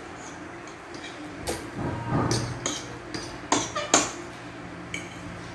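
Forks clinking and scraping on ceramic plates while people eat pasta: a handful of short sharp clicks, the loudest about four seconds in.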